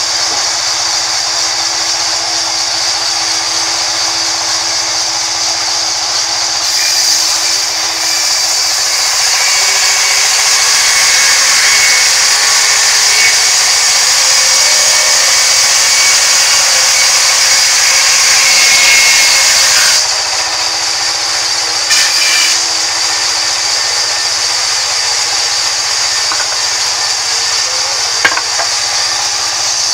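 Band sawmill running, its blade cutting lengthwise through a rain tree log: the sound grows louder and rougher from about seven seconds in, then drops back to the steady hum of the blade running free about two-thirds of the way through. A couple of short knocks of wood being handled come near the end.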